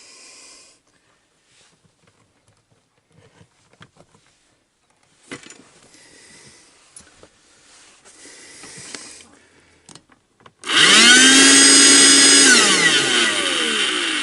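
12-volt hoover motor switched on: it spins up quickly to a steady whine, runs for about two seconds, then is switched off and winds down with a slowly falling whine. It runs now that a bad earth on its socket has been put right. Before it, faint handling clicks and rustles.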